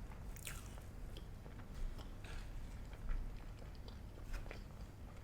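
Close-miked chewing: scattered wet mouth clicks and smacks as food is eaten, with a few louder ones spread through.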